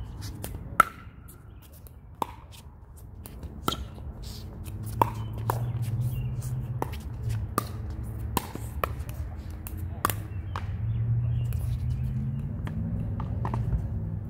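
Pickleball paddles hitting the hollow plastic ball during a rally: a dozen or so sharp pops with a short ring, at an uneven pace over the first ten seconds. A low rumble runs underneath.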